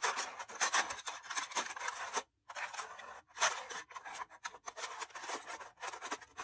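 Pointed tool scratching and pricking aluminium foil stretched tight over a round container: a fast run of short, crisp scratches, with two brief pauses a little after two and three seconds in.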